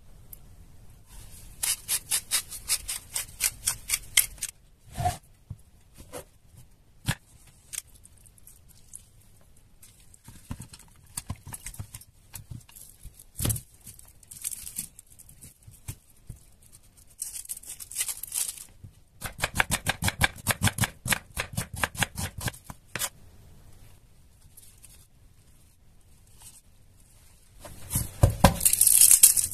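Knife slicing through onion onto a wooden cutting board in quick runs of crisp cuts, about five a second, with pauses and single knocks between the runs. Near the end a louder, papery crackle as a garlic bulb is handled.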